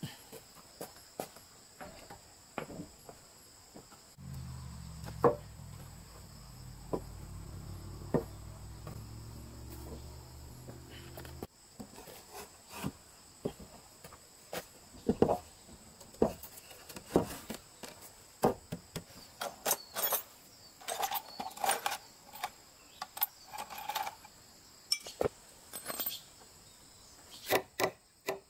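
Scattered wooden knocks and taps as timber boards are set down and a tenon is fitted into its mortise, with a low rumble for several seconds early on. A faint steady insect whine sits underneath.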